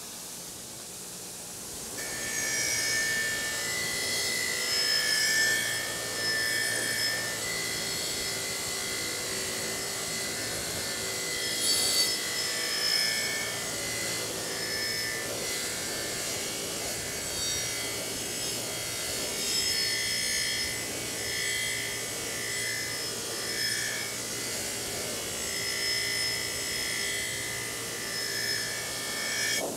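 Bench grinder's wire wheel scouring rust off a steel double-bit axe head (a True Temper Kelly Perfect), a continuous metallic scratching that begins about two seconds in and rises and falls in level as the head is worked against the wheel.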